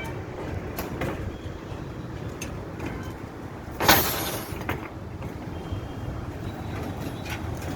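Steady low rumble of a heavy engine or machine, with scattered clicks and one short, loud hiss about four seconds in.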